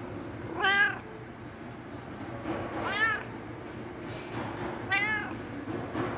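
Domestic cat meowing three times, about two seconds apart, each meow rising then falling in pitch; a hungry cat asking for food.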